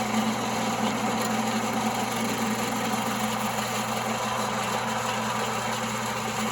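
1939 Pow-R-Kraft wood lathe running: a steady electric motor hum under an even hiss.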